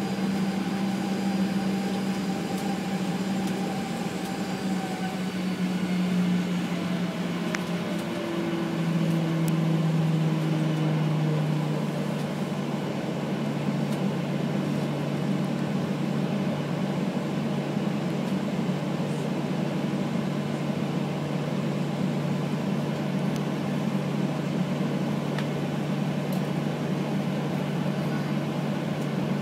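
Cabin hum and whine of a Boeing 737-800's CFM56-7B turbofan engines heard from a window seat. Over the first twelve seconds several tones fall in pitch as the engines wind down, then the low hum holds steady at idle.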